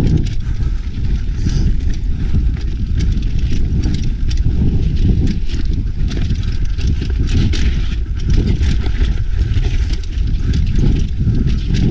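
Mountain bike rattling down a rough dirt-and-rock trail, heard from a camera mounted on the bike: a constant low rumble with rapid, irregular clicks and knocks as the tyres, chain and frame take the bumps.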